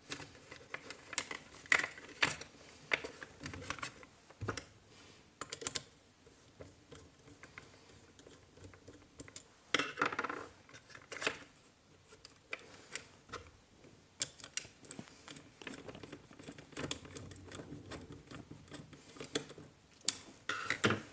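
Scattered small clicks, taps and rustles of hands working a plastic switch box and its wire: twisting stripped copper wire strands and fitting the wire into the switch's screw terminal, with a screwdriver at the terminal near the end.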